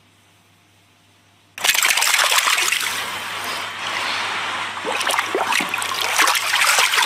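Swimming-pool water splashing and sloshing as a golden retriever wades through it, starting suddenly about a second and a half in and continuing loud and uneven.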